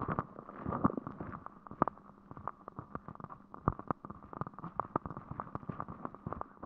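Rain falling on open umbrellas: irregular sharp taps of drops hitting the fabric, several a second, over a faint hiss.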